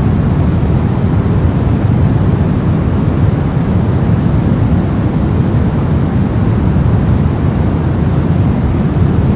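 Steady brown noise: an even, unbroken rush, heaviest in the low end and thinning toward the highs.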